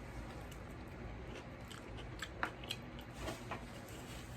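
A person chewing a mouthful of pizza close to the microphone: faint wet mouth clicks and smacks, scattered irregularly over a low room hum.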